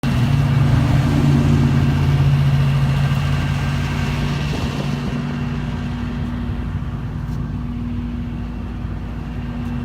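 An engine running steadily with a low hum, a little quieter and slightly changed in note from about four and a half seconds in.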